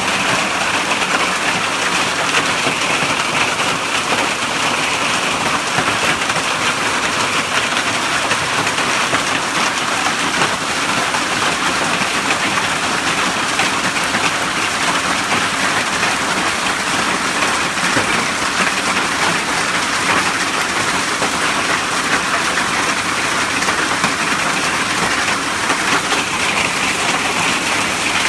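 Hail falling with rain in a thunderstorm, pelting a grass lawn: a steady, dense hiss of countless small impacts that holds unchanged throughout.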